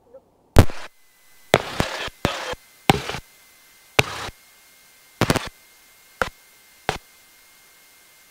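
A series of sharp knocks and clunks, some in quick clusters, the first the loudest, stopping about a second before the end; a faint steady high whine sits underneath from the first knock on.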